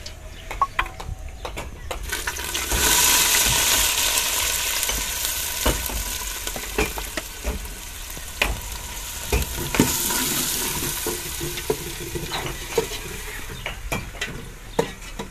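Chopped greens tipped into hot oil in a metal pot start sizzling loudly about two and a half seconds in. The sizzle swells again around ten seconds and slowly dies down, while a metal ladle clinks against the pot as the food is stirred.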